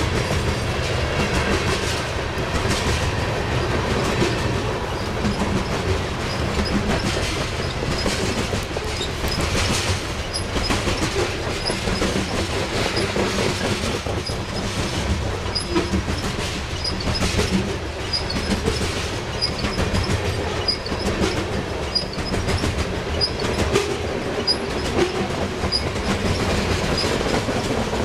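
Loaded coal hopper cars of a long freight train rolling past, their steel wheels rumbling steadily and clicking over the rail joints.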